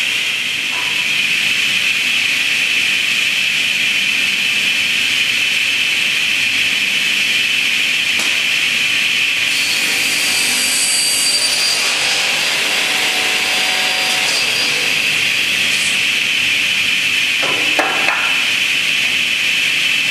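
TR-350RM cross-cut saw running with a steady high whine, cutting through a wooden board about ten seconds in. There is a short knock near the end.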